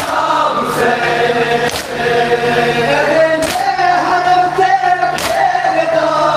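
A crowd of men chanting a nauha (Shia lament) in unison, with sharp slaps of matam, hands striking chests, landing four times at intervals of a second or two.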